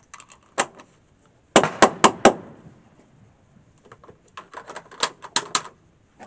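Sharp metallic clicks and knocks from handling a CETME C308 rifle on a shooting rest: a run of four quick clicks about a quarter second apart early on, then another tight cluster of clicks later.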